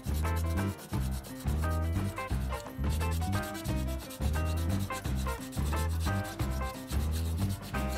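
Sandpaper rubbed by hand back and forth over a metal candelabra, a dry scratching hiss, over background music with a steady bass beat.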